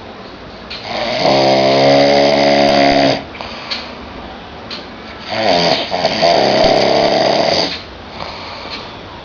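A person snoring loudly: two long snores about four seconds apart, each lasting about two seconds, with quieter breathing between them.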